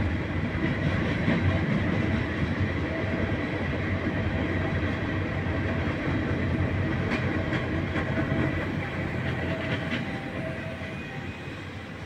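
Freight train cars rolling past close by: a steady rumble of steel wheels on rail with some clacking over the joints. The sound fades over the last few seconds as the end of the train goes by.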